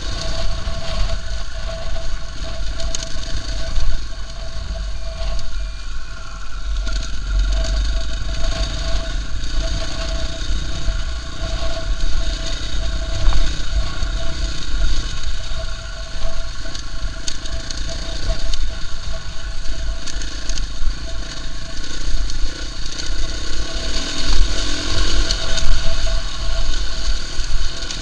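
KTM EXC-F 450's single-cylinder four-stroke engine running steadily on a gravel trail ride, with heavy wind rumble on the microphone.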